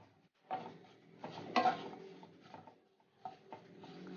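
Wooden spatula stirring dried coconut slices in hot oil in a non-stick kadai, with irregular scrapes and knocks against the pan, the loudest about one and a half seconds in.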